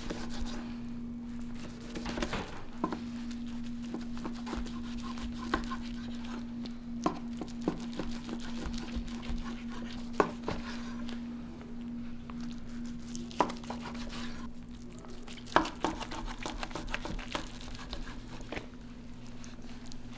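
Scattered clinks and knocks of dishes and cutlery, with a steady low hum underneath.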